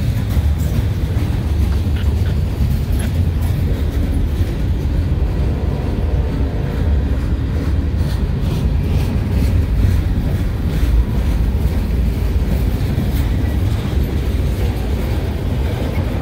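Freight train cars rolling past at close range: a steady, loud rumble of steel wheels on the rails, with a few light clicks from the wheels about halfway through.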